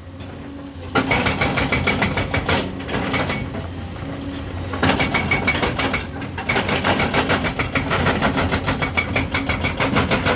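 Excavator-mounted hydraulic breaker hammering in a rapid, even train of blows, starting about a second in, easing off around the middle and then hammering on, over the steady hum of the excavator's engine.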